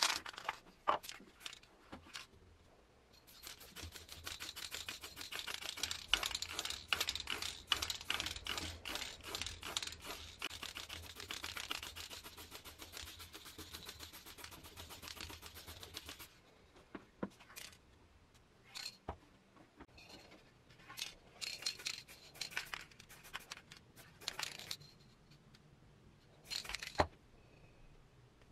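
Aerosol can of chrome spray paint hissing in one long spray from about three seconds in until about sixteen seconds, with fast clicks running through it. After that come a few short hisses and scattered clicks.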